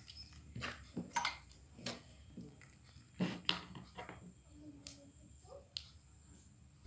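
Slime being squished and poked by hand, giving a string of irregular sharp clicks and sticky pops.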